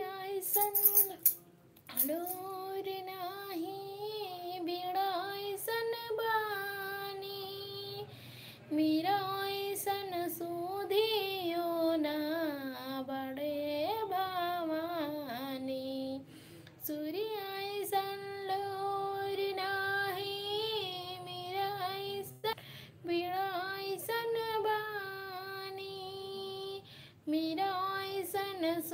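A woman singing solo and unaccompanied, in long drawn-out phrases with wavering held notes and short breaths between them. A few sharp clicks come in the first second or so.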